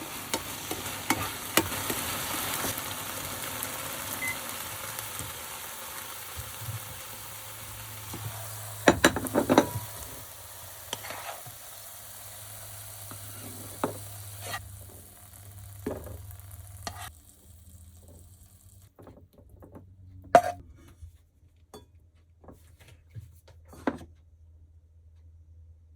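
Eggplant and chikuwa sizzling as they are stir-fried in a frying pan, with a spatula stirring and knocking against the pan. The sizzle dies away about two-thirds of the way through, leaving scattered knocks and clinks of utensils.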